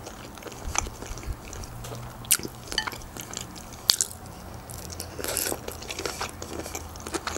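Biting and chewing grilled chicken wing: scattered sharp crisp clicks and wet mouth sounds, with a longer crunchy stretch about five seconds in.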